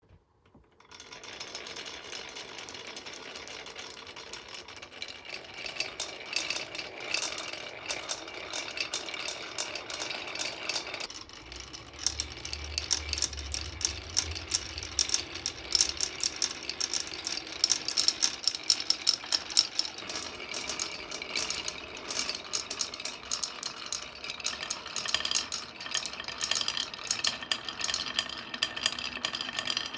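Marbles rolling down a toy marble run: a continuous rolling rattle full of quick clicks as they knock along the track, starting about a second in. A low rumble joins briefly around the middle.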